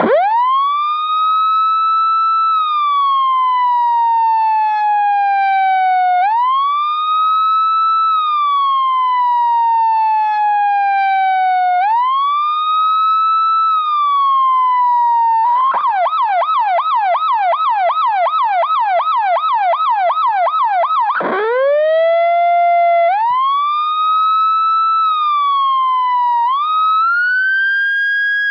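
Federal Signal PA15A Director electronic siren sounding its wail, a slow rise and fall in pitch about every six seconds. About fifteen seconds in it switches to yelp, about three or four fast up-down sweeps a second, for some six seconds. Then it goes back to wail with shorter rises.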